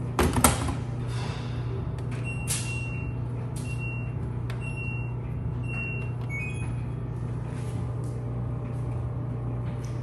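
Coin-operated washing machine: a clunk, then four high electronic beeps as its buttons are pressed, ending in a quick run of short beeps at a few different pitches. A steady low machine hum runs underneath.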